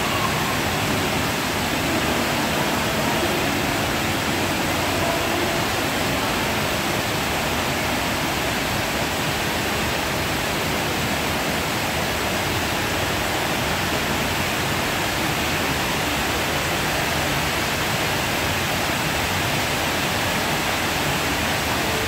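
Mall water fountain: a tall jet of water falling and splashing into its basin, making a steady, even rush of water.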